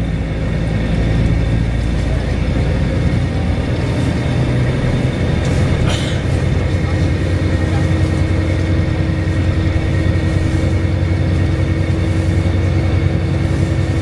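Volvo B7RLE single-deck bus under way, heard from inside the passenger cabin: the diesel engine and drivetrain run steadily, with a high-pitched screeching whine held over them. There is a brief sharper squeal about six seconds in, and a steady lower hum joins shortly after.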